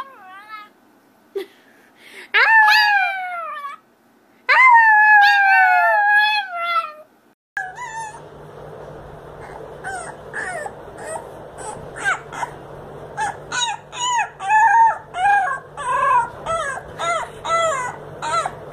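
A Chihuahua howls twice, two long howls that fall in pitch. Then a beagle puppy gives a quick run of short, high yips and whimpers, several a second, over a steady low hum.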